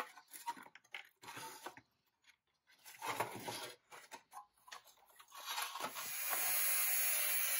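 Rusty pressed-steel toy truck parts handled on a steel workbench, with irregular clinks, knocks and scrapes of metal on metal. About six seconds in, an angle grinder starts grinding steel, a steady high hiss that is the loudest sound.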